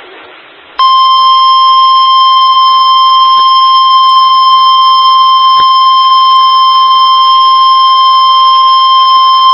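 NOAA Weather Radio warning alarm tone: a loud, steady single-pitched tone that comes on about a second in after a moment of radio static, announcing a tornado warning broadcast.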